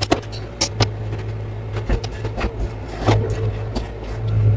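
Tractor diesel engine idling steadily while it warms up, heard from inside the cab, with a string of sharp clicks and knocks from the steering wheel and cab controls being handled.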